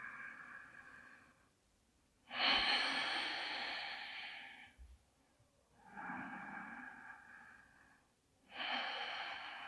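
A woman's slow, deliberate breaths during yoga, one in or out with each lift and lowering of the hips in bridge pose. Four long breaths are heard, each a second or two long with short silent gaps between; the one a little after 2 s is the loudest.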